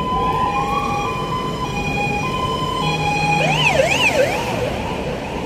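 Electronic emergency-vehicle siren sounding over street and tram noise: held tones stepping between a higher and a lower pitch, then switching to a fast up-and-down yelp for about a second and a half a little past the middle.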